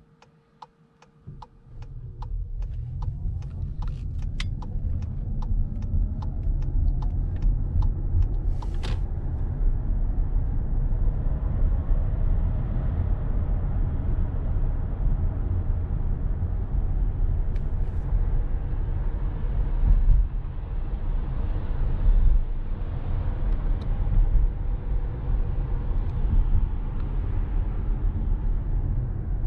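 Inside the cabin of a Volkswagen Passat GTE plug-in hybrid pulling away and driving: a low, steady rumble of tyre and road noise rises over the first two seconds and then holds. A regular ticking, about twice a second, runs for the first nine seconds and then stops.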